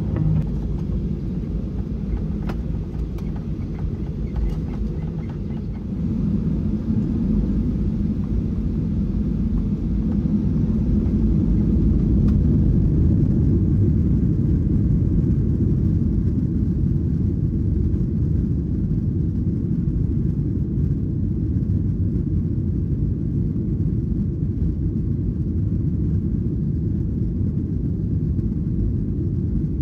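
Boeing 737-800 jet airliner heard from inside the cabin: a steady low rumble of engine and air noise. It steps up in loudness about six seconds in and then holds.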